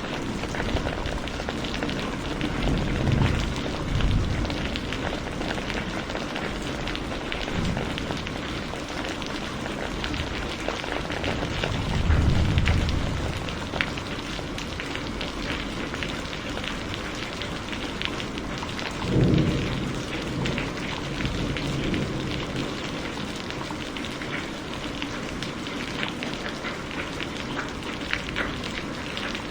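Heavy rain falling steadily, a dense patter of drops on surfaces, with three short low rumbles of thunder: a few seconds in, near the middle and about two-thirds through.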